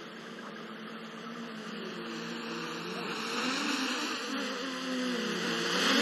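Drone propellers buzzing, the pitch wavering and the sound growing louder, then dipping and rising sharply near the end.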